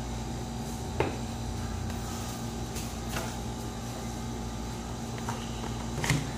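A few light knocks and clicks of crayons being picked up and set down on a plastic table, over a steady room hum. The sharpest knock comes about a second in and another near the end.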